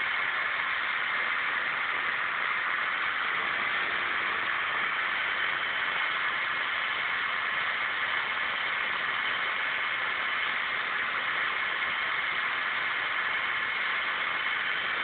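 Small motorbike engine held at high revs while its rear tyre spins in place on paving stones in a burnout, a steady, unbroken noise at a constant level.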